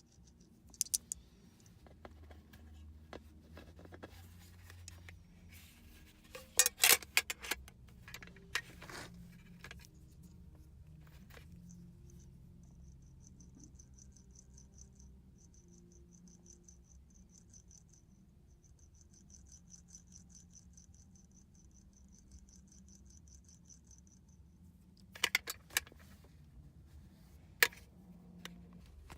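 Metal fidget spinners handled, giving sharp clicks and clacks, in a cluster about a third of the way in and again near the end. Through the middle a faint, high, fast-pulsing trill runs for about twelve seconds.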